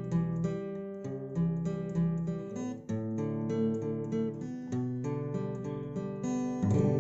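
Background music: acoustic guitar, plucked and strummed, in a steady run of notes.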